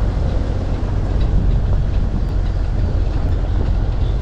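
A vehicle driving along a road: steady, loud low rumble of engine and tyre noise.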